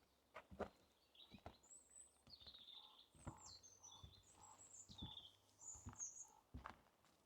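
Songbirds chirping with quick, high gliding notes, with another bird calling a short note over and over near the middle. Soft footsteps on a forest path come about once a second.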